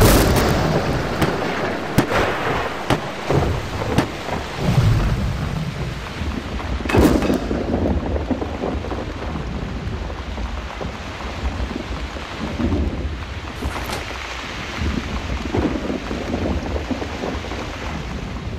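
Steady heavy rain with rolling rumbles of thunder, broken by a few sharp knocks: one right at the start and a louder one about seven seconds in.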